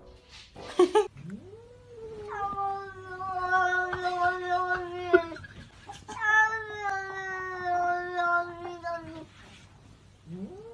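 A cat yowling: two long drawn-out cries of three to four seconds each, the first sliding up in pitch at its start, both then held at a steady pitch. A third call starts rising near the end.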